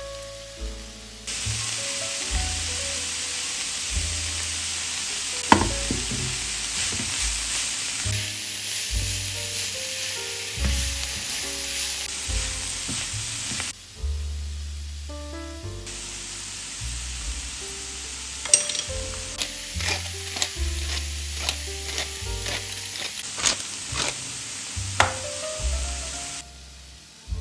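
Shredded cabbage, carrot and scrambled egg sizzling in a frying pan as they are stirred, with sharp scrapes and taps of the spatula against the pan. The sizzling drops out briefly about a third of the way in and again near the end.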